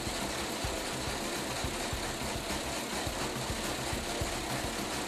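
Engine running with its valve cover off, its springless round-lobe desmodromic valve train exposed; a steady running sound with rapid, uneven ticking from the open valve gear.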